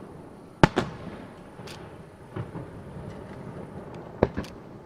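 Aerial firework shells going off: two sharp bangs in quick succession about half a second in, a few fainter pops after, and another close pair of bangs near the end.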